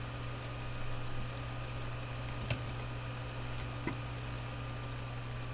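Steady low hum with faint ticking, and two sharp clicks about two and a half and four seconds in, from computer keys being pressed to switch windows.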